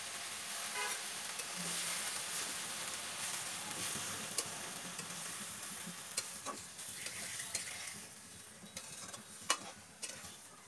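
Malabar spinach, shrimp and banana stem sizzling in a frying pan with a steady hiss while a spatula stirs them. The spatula knocks sharply against the pan a few times in the second half.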